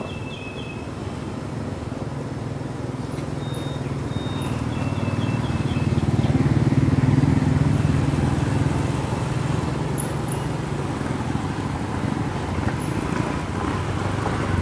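A motor vehicle's low engine rumble builds to its loudest about seven seconds in, then eases but keeps running. A few short high chirps sound in the first few seconds.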